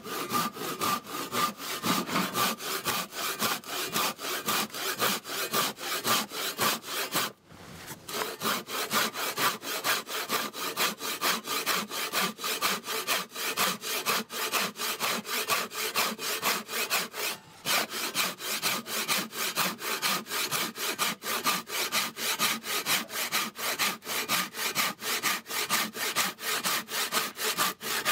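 Freshly resharpened Japanese ryoba pull saw crosscutting a wooden block with quick, even strokes. There are two short breaks, about seven and seventeen seconds in. The newly sharpened teeth cut cleanly, with a sound markedly different from before the restoration.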